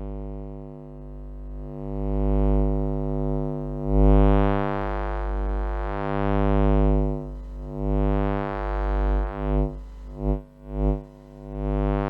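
Electromagnetic hum of a soldering iron picked up electrically: a steady, buzzy mains-type hum rich in overtones that swells and fades in brightness and cuts in and out several times near the end.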